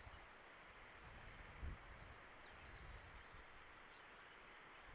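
Near silence: faint outdoor background hiss, with one soft low thump about a second and a half in.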